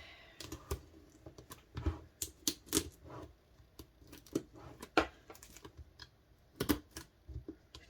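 Hands handling DVD packaging and its contents: a string of irregular sharp clicks and taps, louder around the middle and again near the end.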